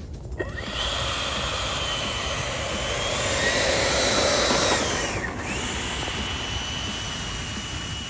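Radio-controlled model jet's engine running with a high, steady whine; the pitch rises around three seconds in, glides down and briefly drops out about five seconds in, then comes back and holds steady.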